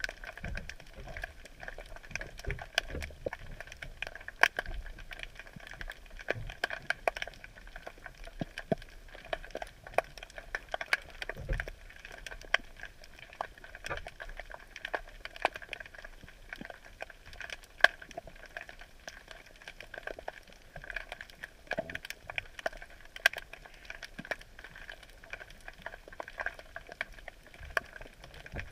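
Dense, irregular crackling and clicking heard underwater through the camera sunk in a crab drop net, a steady scatter of sharp ticks over a constant hiss.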